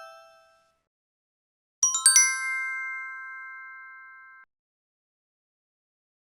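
A bright, bell-like mallet-percussion chime. A struck note fades out in the first half second; about two seconds in, a quick run of four struck notes lands on a ringing chord that holds for over two seconds and then cuts off abruptly.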